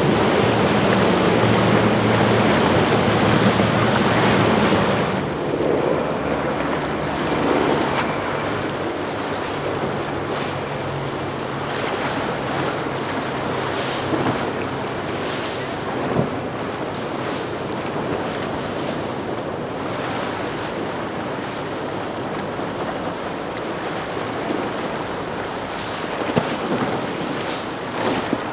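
Motor yacht engines running as boats pass, with water rushing and wind buffeting the microphone. The sound is loudest for the first five seconds, then settles to a lower, steady level.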